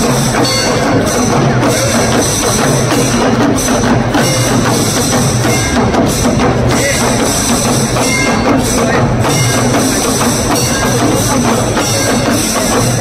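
Drums and other percussion playing loudly and without a break, with voices mixed in.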